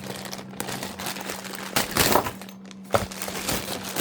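Packing material crinkling and rustling as a box of locks is unpacked, with a few sharp knocks from items being handled, under a faint steady hum.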